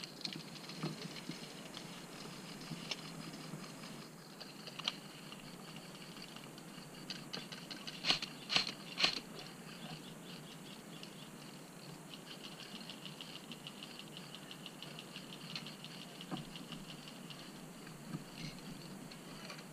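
Faint airsoft gunfire: rapid light clicking in bursts from airsoft guns firing across the field, with three sharper cracks close together about eight to nine seconds in.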